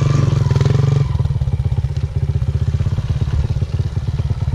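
Kawasaki KLX dirt bike's single-cylinder four-stroke engine pulling under light throttle, then easing off about a second in to a low idle with each firing beat distinct.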